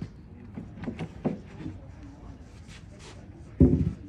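Wooden bed-frame parts being handled during assembly: a few light knocks and clicks, then a heavier thump about three and a half seconds in.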